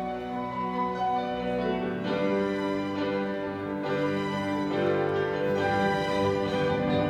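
Symphony orchestra with bowed strings and grand piano playing sustained, slow-moving music, growing gradually louder.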